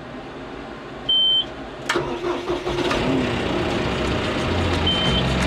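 John Deere 5085M tractor's diesel engine being started: a short high beep about a second in, a sharp click, then the engine starts and runs, growing steadily louder. A second short beep comes near the end.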